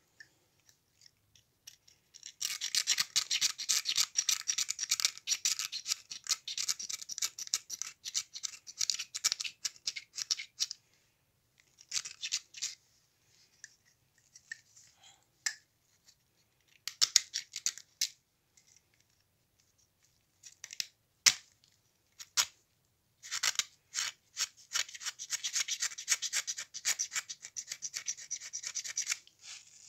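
Brisk back-and-forth scrubbing on the metal top of an engine piston, cleaning it to bring out its direction mark. There are two long spells of fast, even strokes, one near the start and one near the end, with a few short scrapes and clicks between.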